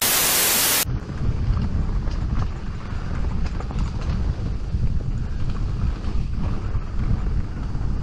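A burst of TV-static hiss for under a second that cuts off abruptly. Then wind buffets the microphone of a camera riding down a dirt trail on a mountain bike, with small rattles and knocks from the bike over the rough ground.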